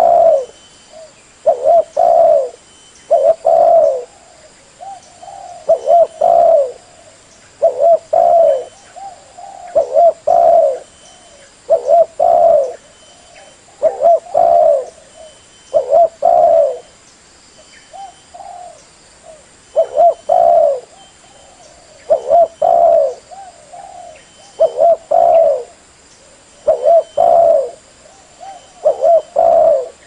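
Spotted dove cooing over and over, a phrase of two or three short coos about every two seconds: a tekukur lure call.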